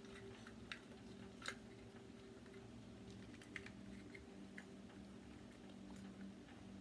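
Near silence: a faint steady low hum with about six soft, scattered clicks and taps. The sharpest tick comes about a second and a half in.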